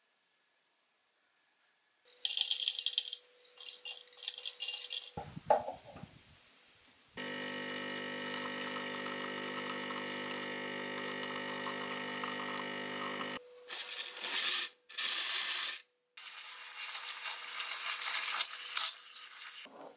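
Espresso being made on a Lelit espresso machine: a few seconds of rattling, clattering bursts, then the machine's pump humming steadily for about six seconds as the shot pulls. Then the steam wand hisses in two loud blasts and goes on with a rougher, wavering hiss as it steams milk in a pitcher.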